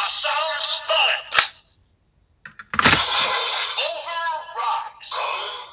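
Electronic sound effects from a DX Kamen Rider Zero-One transformation toy's speaker, set up with the Assault Wolf Progrise Key: synthesized standby music with a chanting voice. It breaks off with a click about a second and a half in, goes silent for about a second, then a sharp click near three seconds restarts the music and voice.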